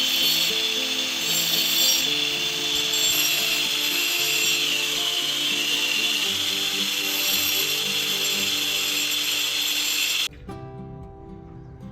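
Power tool cutting bamboo, a loud steady hissing noise over background music, stopping abruptly about ten seconds in and leaving only the music.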